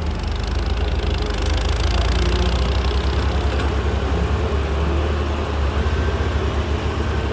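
Hyundai 130W wheeled excavator's diesel engine running steadily with a heavy low rumble, the level rising slightly over the first couple of seconds.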